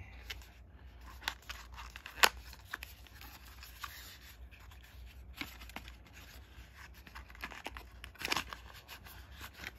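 Small cardboard box being opened by hand: a paper seal peeled and torn off the flap, with light rustling of the card and scattered small clicks, the sharpest about two seconds in.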